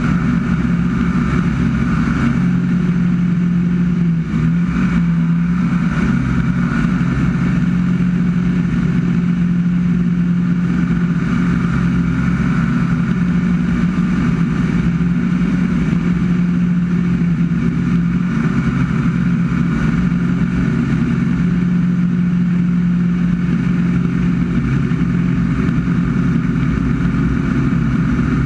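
Piston engine of a light aerobatic propeller plane running steadily in flight, heard from inside the cockpit as a loud, unbroken drone with rushing air noise.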